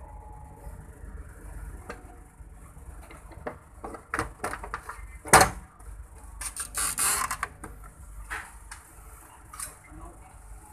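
Plastic fold-down tray table on a train seat back being handled and folded up: a series of clicks and one sharp clack about five seconds in, then a brief rustle. A steady low hum runs underneath.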